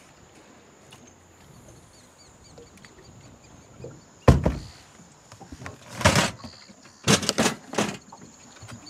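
Knocks and thuds of gear being handled on an aluminium boat, with an underfloor hatch being worked. There is one sharp knock about four seconds in, a couple more a second or two later, and a quick run of knocks near the end.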